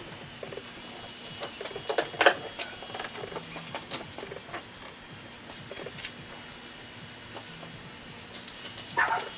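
Scattered light clicks and taps of hands working on parts and fasteners inside a car's open trunk, the sharpest about two seconds in.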